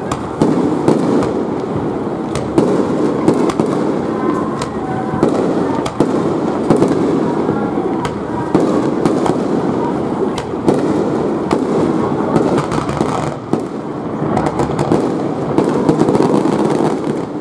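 A dense volley of aerial firework shells bursting: overlapping booms run together into a continuous rumble, with many sharp cracks throughout.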